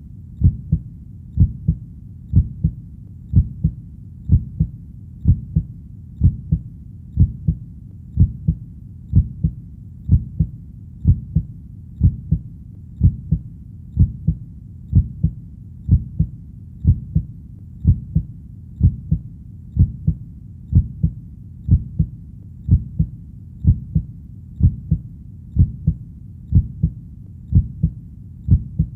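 A heartbeat sound, steady and even: each beat is a doubled low thump (lub-dub), about one a second, over a faint low background hum.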